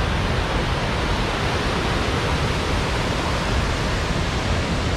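Large waterfall and rapids rushing over rocks: a loud, steady, unbroken wash of water noise.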